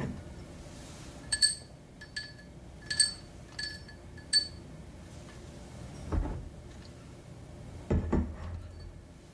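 A glass being clinked five times in quick succession, each strike ringing at the same bright pitch, followed by two dull low knocks.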